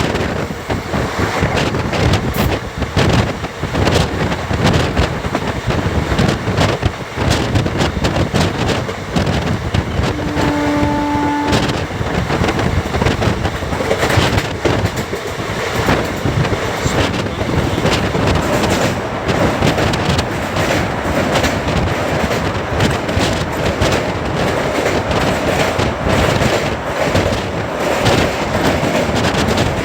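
Passenger train running at speed, heard from on board: a steady rumble of wheels on rails with frequent clicks and knocks, and wind buffeting the microphone. A short, steady horn-like tone sounds for about a second, roughly ten seconds in.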